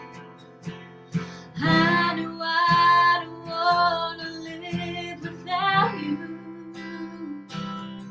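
Music: a woman singing long held notes over a strummed acoustic guitar, the voice loudest in the middle.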